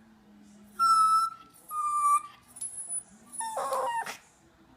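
Chihuahua whining: three short, high-pitched whines about a second apart, the last one rougher.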